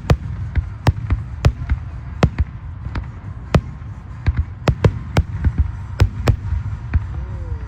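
Fireworks going off: many sharp bangs in quick, irregular succession over a continuous low rumble.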